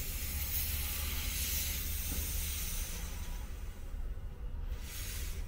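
Compressed air hissing from a leaking pop-off (safety relief) valve on a charged air-compressor tank at about 170 PSI. The hiss fades about three seconds in and comes back briefly near the end, over a low steady hum.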